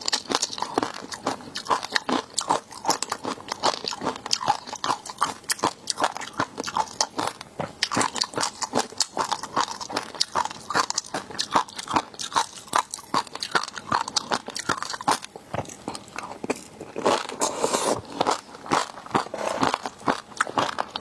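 Close-miked eating of seafood: continuous crunching, biting and chewing, several sharp crunches a second.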